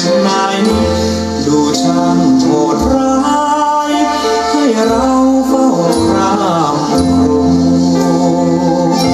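A song with singing and light percussion over sustained reed-like notes and a bass line, played through a homemade loudspeaker being sound-tested.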